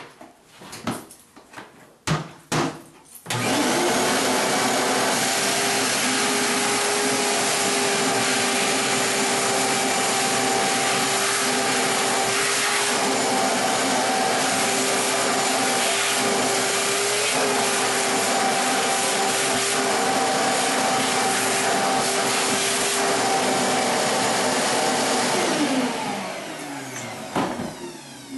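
Shop vac switched on a few seconds in after some knocks, running steadily with a whine as it sucks the remaining water out of a toilet tank, then switched off and winding down near the end.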